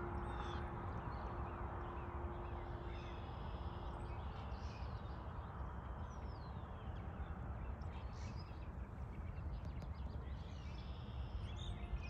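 Small birds chirping and calling here and there over a steady low outdoor rumble. A held musical tone fades out in the first few seconds.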